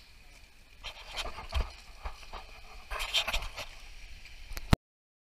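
Wind gusting on the camera microphone, with rustling and knocking of the camera being handled, in two busier spells. The sound cuts off abruptly to dead silence near the end.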